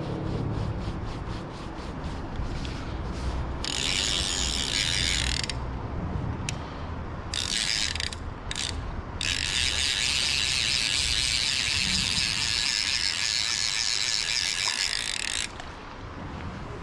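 Centrepin reel's ratchet check clicking as a hooked small brown trout is played on a float rod: slow even ticks at first, then several runs of fast whirring clicks as the reel drum spins, the longest about six seconds.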